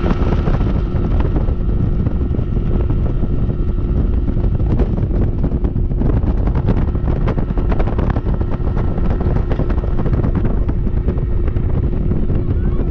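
Boat's Mercury outboard motor running steadily at speed, with a held steady engine tone, mixed with heavy wind buffeting on the microphone and rushing water.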